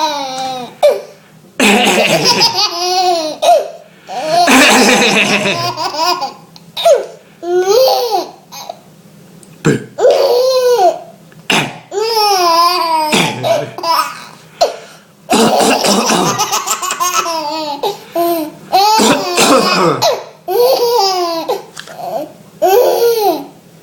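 A baby laughing in repeated bursts of high-pitched giggles, set off by a man's coughs that come in between the laughs.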